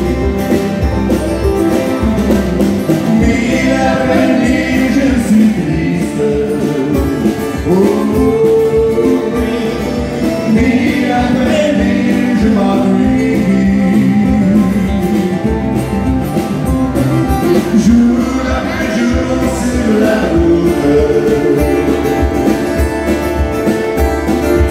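Live acoustic country music: a man singing a French-language song over strummed acoustic guitars and ukulele, with a fiddle.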